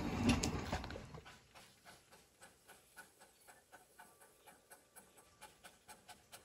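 Low rumble of a passing train fading out, then the faint, even chuffs of the Darjeeling Himalayan Railway steam locomotive No. 19B working at a distance, about three a second.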